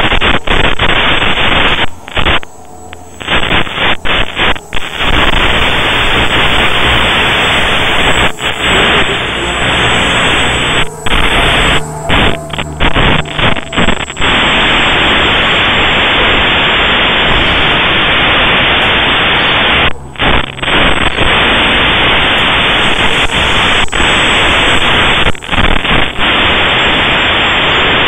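Loud, steady static hiss from the FPV video link's audio channel as recorded by the DVR, broken by brief sudden dropouts several times.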